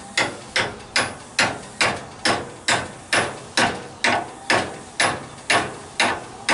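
Hammer tapping a greased bushing into a big truck's leaf spring eye, metal on metal, in steady light strikes about two a second.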